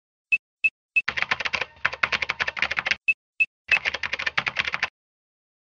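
Keyboard typing: three single key clicks about a third of a second apart, then a fast run of keystrokes for about two seconds. Two more single clicks follow, then another fast run that stops abruptly a little before the end.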